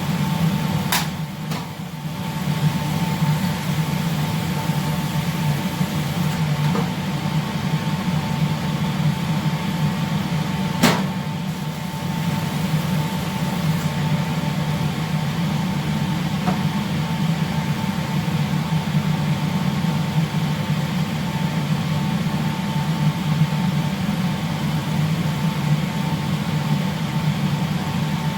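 Steady low drone of shipboard machinery, with a thin high whine held on top. Two sharp clicks cut through it, one about a second in and another about eleven seconds in.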